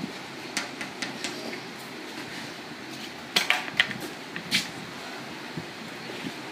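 Bar-facing burpees on a rubber gym floor: hands and feet slapping and thudding down as the athlete drops and jumps over the barbell, a few sharp hits about half a second in and a cluster around the middle. Underneath is the steady rush of a large floor fan.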